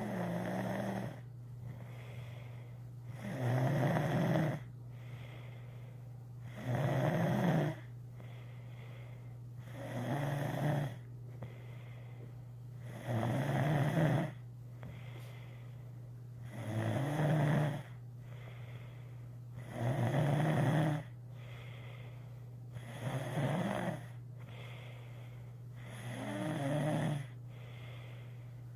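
Snoring: a loud rasping snore about every three seconds, each lasting about a second, with quieter breaths between. A steady low hum runs underneath.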